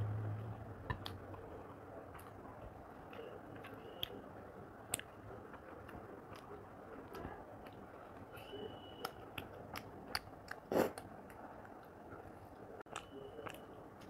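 Quiet close-up eating sounds: fingers picking cooked chicken meat off the bone on a plate, with soft chewing and scattered small clicks and clinks, one a little louder about eleven seconds in.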